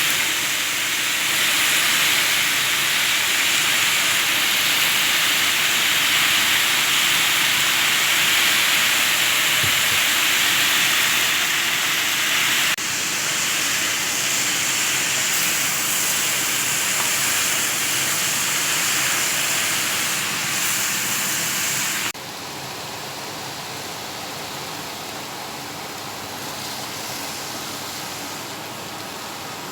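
Food sizzling in a hot frying pan, a steady hiss. It drops abruptly in level a little before halfway and again about three-quarters of the way in.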